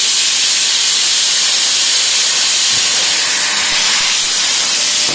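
Plasma torch on a portable CNC cutting machine cutting through metal plate: a loud, steady hiss from the plasma arc and its air jet.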